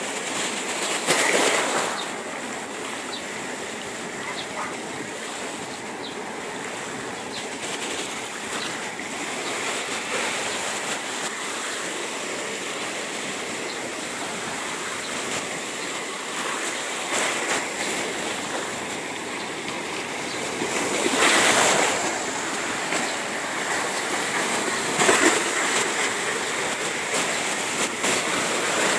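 Water rushing and splashing along the hull of a moving boat, a steady wash that swells louder briefly near the start and twice in the last third.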